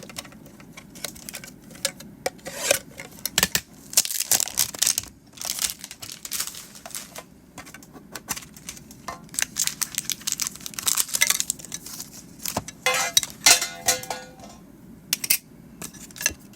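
Pokémon card packaging being opened by hand: foil and plastic wrappers tearing and crinkling in a long string of irregular sharp crackles, with a few light clinks.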